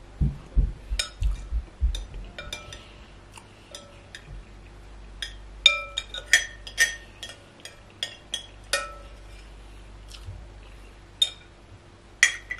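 Metal spoon clinking and scraping against a glass bowl while scooping up the last of the soup, in sharp ringing clinks at irregular intervals, most of them in the second half.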